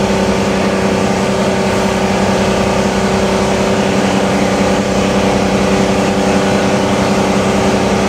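New Holland T7060's 6.7-litre FPT six-cylinder diesel running at a steady pitch under heavy PTO dynamometer load, the power take-off pulled down to about 890 rpm while making around 273 hp.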